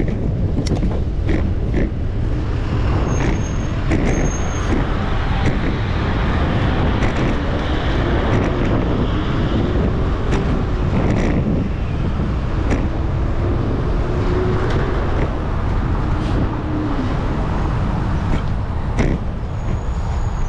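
Steady wind rush on a GoPro's microphone while cycling through city traffic, over the hum of road vehicles. An engine note wavers in pitch for several seconds midway, and scattered clicks and knocks run through it.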